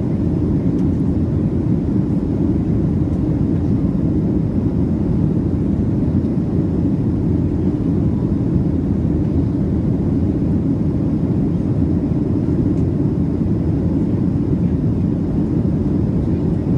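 Steady cabin noise of a Boeing 737 in flight: the low rumble of its CFM56 turbofans and rushing airflow, unchanging throughout, as heard from a passenger seat.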